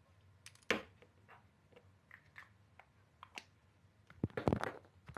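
Scattered light clicks and taps of objects being handled, then a louder cluster of knocks and rubbing about four seconds in as the recording camera is picked up and moved.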